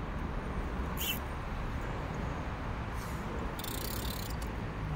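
Steady low rumble of road traffic on the concrete bridge overhead, with brief faint hissing about a second in and again around the fourth second.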